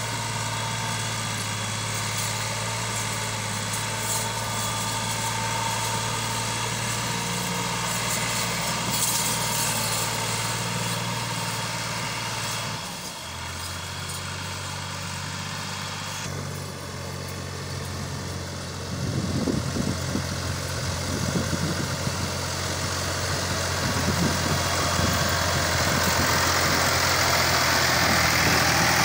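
Massey Ferguson tractor's diesel engine running steadily. The engine note shifts twice midway, then grows louder and rougher in the last third as it is heard close by.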